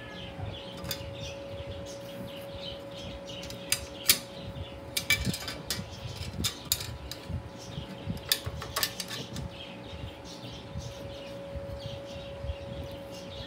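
Stainless-steel parts of a manual meat slicer clicking and clinking as they are handled and fitted by hand, in scattered sharp taps, busiest through the middle. A steady hum runs underneath.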